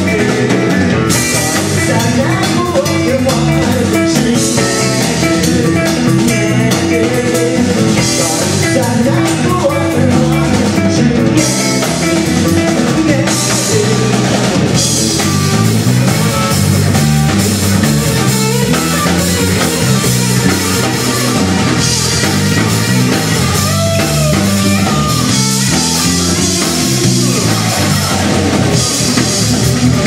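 Live rock band playing: electric guitar, bass guitar and drum kit, with a male singer.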